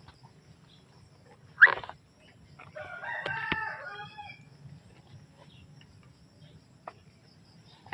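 A rooster crows once, starting a little under three seconds in and lasting about a second and a half. Shortly before it, a single brief, sharp sound is the loudest thing heard.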